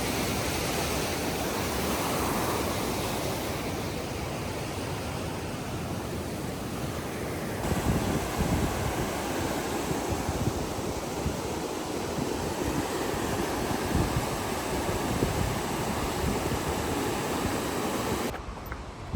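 Steady rushing roar of a fast mountain river. From about halfway through, wind buffets the microphone in uneven low gusts. The sound breaks off abruptly near the end.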